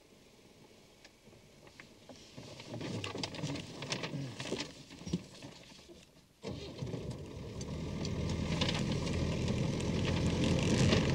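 Car cabin noise: the engine and tyres running steadily, coming in suddenly about six seconds in and building. Before that, a crackling stretch of a large paper map being handled and folded.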